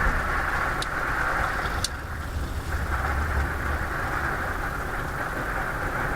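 Thunderstorm wind and rain heard against an RV: a steady roar with a deep rumble underneath, and a couple of sharp ticks in the first two seconds.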